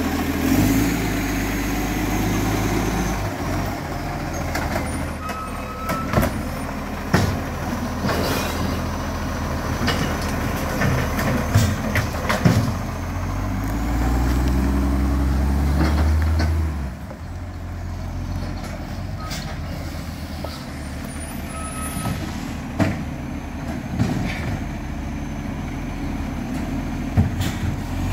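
Garbage truck's diesel engine rising in pitch twice as it pulls away along the street, with several short sharp clanks and air-brake hisses in between.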